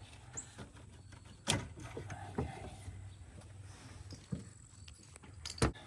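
Scattered clicks and knocks of pliers and hands working spark plug wires off their plugs in the engine bay, four or five separate sharp knocks over a low steady hum.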